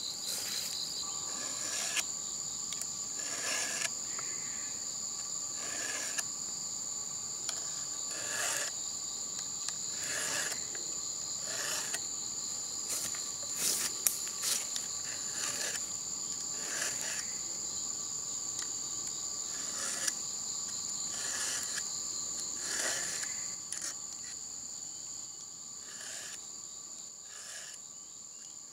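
Insects droning in the undergrowth, a steady high-pitched buzz, with irregular light knocks and rustles throughout.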